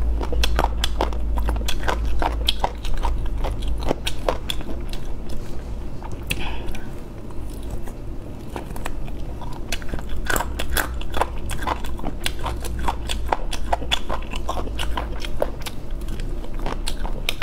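Biting and chewing meat off chicken drumsticks, with many sharp, irregular crunchy clicks.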